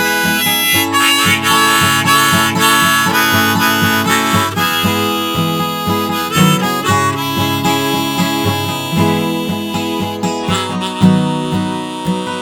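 Instrumental break of a folk song: harmonica playing a melody over strummed acoustic guitar.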